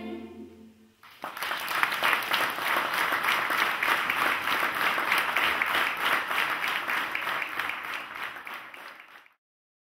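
The last held chord of the choir dies away. About a second in, the audience breaks into steady applause, which is cut off abruptly near the end.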